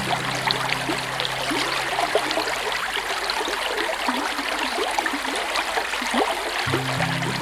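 Small river flowing, water trickling and gurgling with many small quick bubbling plops over a steady rushing hiss.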